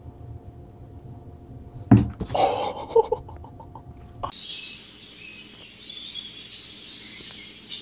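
A sudden thud about two seconds in as a kitten drops from a bed onto a wooden floor, followed by a few lighter knocks. After that a different scene with high, steady chirping and twittering.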